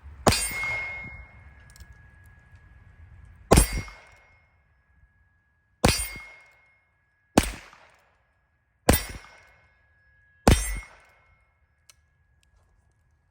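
Six shots from a Heritage Rough Rider Rancher .22 Long Rifle single-action revolver carbine, fired one at a time about one and a half to three seconds apart. Each shot is a sharp crack followed by a brief ringing tone.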